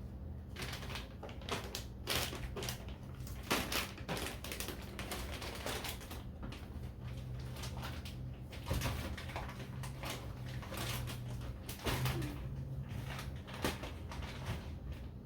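Pantry items, boxes and containers being handled and set on shelves: an irregular run of clicks, knocks and rustles over a steady low hum.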